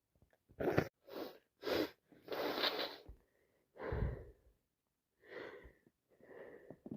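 A person with a heavy head cold sniffing and breathing through a congested nose: a run of short, quick sniffs, a longer breath about two and a half seconds in, then fainter sniffs near the end.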